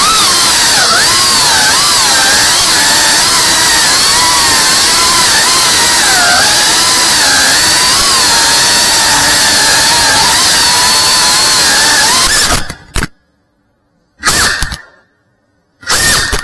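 FPV racing quadcopter's motors and propellers whining, the pitch rising and falling as the throttle changes. About 12.5 s in the sound cuts off, followed by two short bursts of motor noise.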